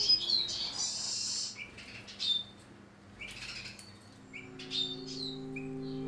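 Caged finches chirping with short, high calls, and a brief flutter of wings about a second in. Soft background music with sustained tones comes in after about four seconds.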